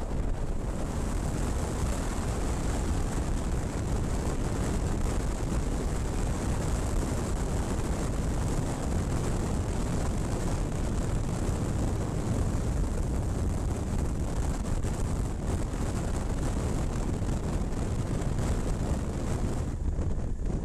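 Steady wind rush on a helmet-mounted camera's microphone, with a motorcycle's engine and road noise underneath, from a touring motorcycle riding at speed. The hiss thins out near the end.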